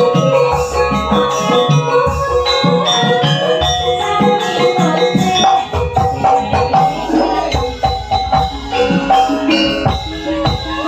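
Live campursari music played through a PA: gamelan-style struck pitched percussion over a steady drum beat.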